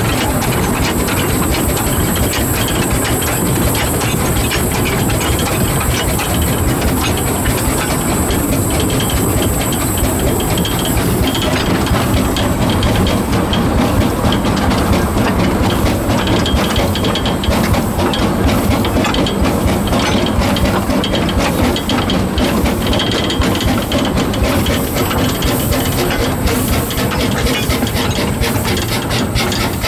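The 1924 narrow-gauge steam locomotive Wee Georgie Wood running along the line, heard on board just behind it: steady steam hiss over a continuous clatter of wheels and rolling stock. A high hiss eases about eleven seconds in.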